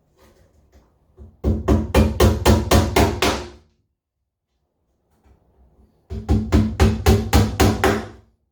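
Hammer driving small frame nails to fix the runners inside a wooden commercial hive brood chamber: two runs of quick, ringing blows, about four a second, with a pause between them.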